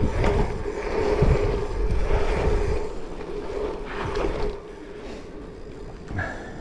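Wind buffeting the microphone and a dirt jump bike's tyres rolling over an asphalt pump track, with a steady hum; it gets quieter about four and a half seconds in as the bike slows.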